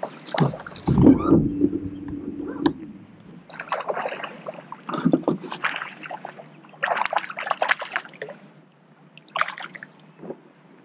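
Water splashing in four or five short bursts as a hooked smallmouth bass thrashes at the surface while it is fought to the boat. Heavy knocks and handling noise come in the first couple of seconds.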